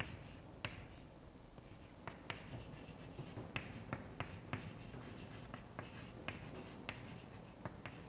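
Faint chalk writing on a chalkboard: a string of irregular short taps and scratches as letters are written.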